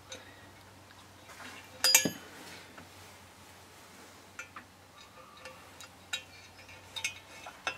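Small metal engine parts clinking and tapping against a Honda 400/4's bare aluminium crankcase as they are handled and seated by hand. The loudest is a single sharp clink with a brief ring about two seconds in, followed by a few lighter ticks.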